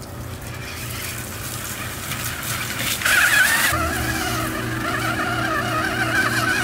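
Electric motor and gears of a toy-grade RC rock crawler whining and wavering in pitch as it drives, growing louder about three seconds in.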